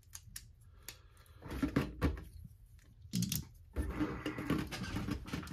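Plastic Beyblade top and its parts being handled and reassembled: scattered small clicks and knocks, a few louder clunks, then busier rustling and clicking of parts in the second half.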